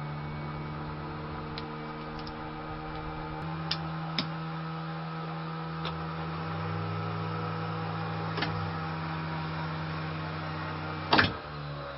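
A small electric motor humming steadily, its pitch shifting a couple of times, with a few sharp switch clicks and a louder double click about eleven seconds in. It runs on a battery supply whose voltage is very low.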